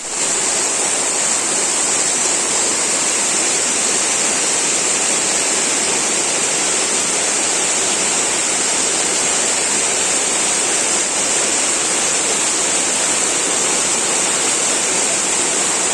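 Waterfall: a steady, even rush of falling water, with a constant high-pitched hiss over it.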